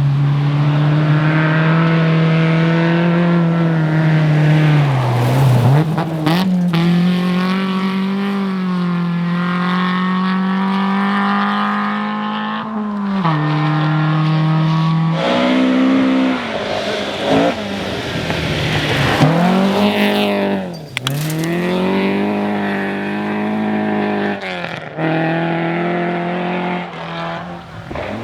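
Rally car engine at high revs on a special stage: long pulls that several times drop in pitch as the driver lifts or changes gear, then climb again, with a few sharp cracks along the way.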